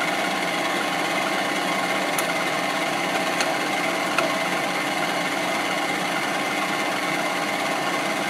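Vertical milling machine's spindle running steadily with the end mill spinning, a few faint ticks early on. The knee is being raised slowly to bring the cutter up to touch off on a corner of the workpiece, with contact not yet made.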